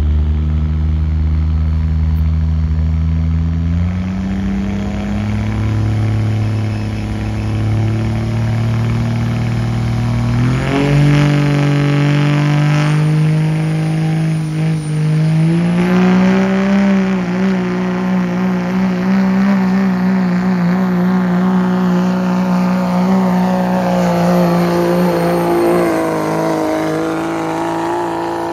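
Dodge Ram pickup's Cummins turbo-diesel at full throttle, pulling a weight-transfer sled. The engine's pitch climbs in three steps over the first half, then holds high to the end.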